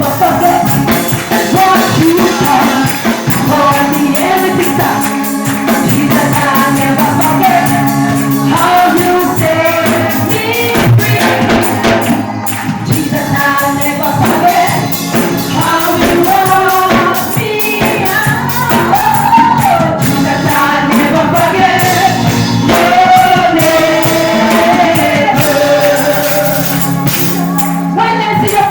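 Gospel praise music from a church service: voices singing over a band, with percussion keeping a steady beat.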